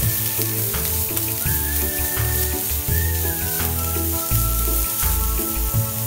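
Julienned carrots sizzling as they are stir-fried in a frying pan and stirred with chopsticks. Background music with a repeating bass line and a melody plays over it.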